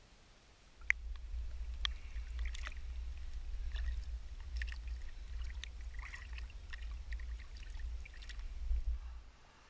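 Water lapping and splashing around a camera held at the surface, with a low rumble and sharp knocks from handling. It starts about a second in and stops just after nine seconds, while a caught garfish is held at the water's edge.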